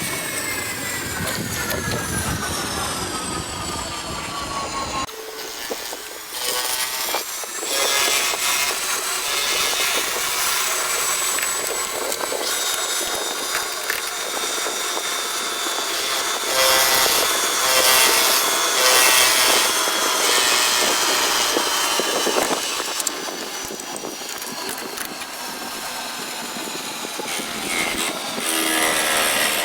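A machine tool cutting valve reliefs into a Nissan L20 piston crown. A high whine falls in pitch over the first few seconds, then the cut goes on as a steadier high whine with scraping noise.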